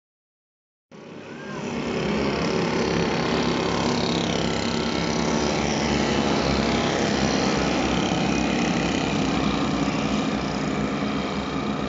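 Several derny pacing motorbikes' small engines running together as the pack rides past, starting abruptly about a second in, with pitches gliding up and down as machines pass.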